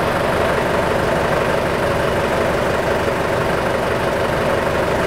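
The built-in printer of a Heshbon HD-410 diesel smoke opacity meter running steadily as it prints out the opacity test result, with a diesel car engine idling underneath.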